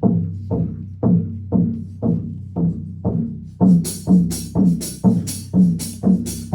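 Low brass section playing a bouncy instrumental intro in short, detached low notes, about two a second. A clicking percussion part joins about three and a half seconds in.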